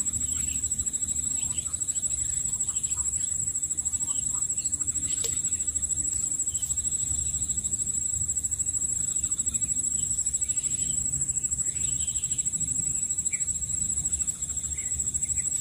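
Steady high-pitched insect chorus, a fast pulsing trill that never lets up, over a low rumble.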